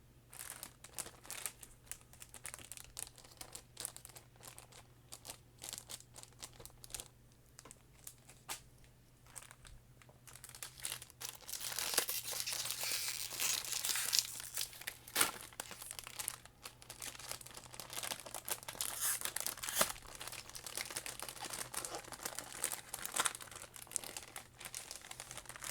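Plastic packaging of Pokémon card products crinkling and tearing as it is handled, with scattered crackles at first and a louder, denser stretch of crinkling from about halfway through.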